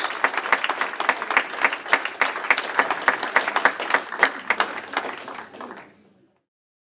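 Audience applauding, with dense clapping that fades out near the end.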